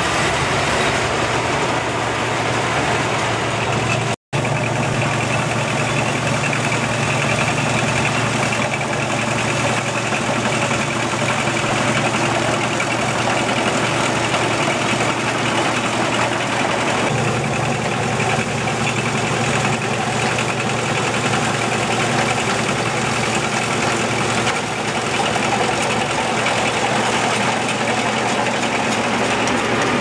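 Zoomlion 4LZ-5.0 tracked rice combine harvester running steadily as it cuts standing rice, its diesel engine and machinery making a continuous drone. The sound cuts out for an instant about four seconds in.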